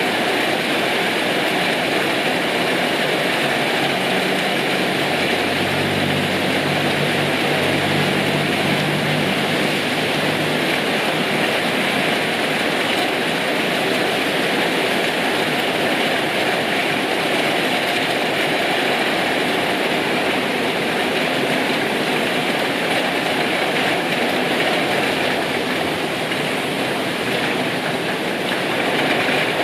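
Heavy rain falling steadily. A low engine-like hum passes under it from about four to eleven seconds in.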